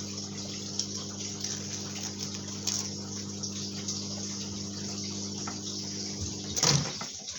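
Microwave oven running with a steady hum and fan noise. The hum cuts off about six and a half seconds in, followed by a brief louder noise.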